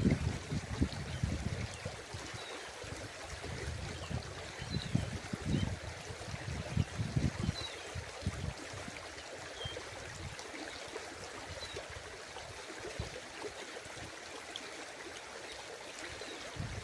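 Water running steadily, as in a stream or river, with intermittent low rumbles during the first half and a few faint high chirps.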